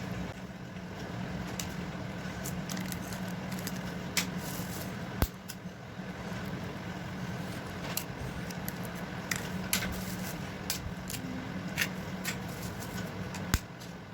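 Eggs being cracked one after another against a bowl and dropped in: irregular sharp taps and clicks of shell, with a steady low hum underneath.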